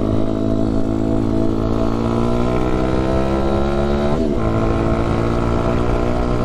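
A road-legal pit bike's engine running under way. Its pitch climbs steadily as the bike accelerates, breaks briefly about four seconds in, then holds steadier.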